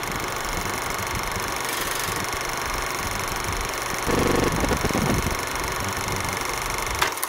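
Film projector sound effect: a steady mechanical running noise with hiss. About four seconds in it turns louder and deeper for about a second, and a sharp click comes near the end.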